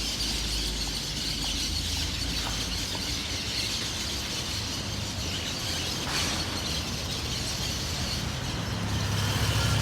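City dusk ambience: a steady low traffic rumble under a dense chatter of many birds.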